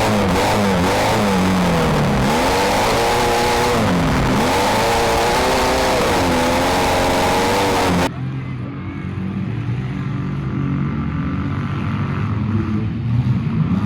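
Demolition-derby compact car engines revving hard, their pitch rising and falling over and over. About eight seconds in the sound cuts abruptly to a quieter, steadier engine running.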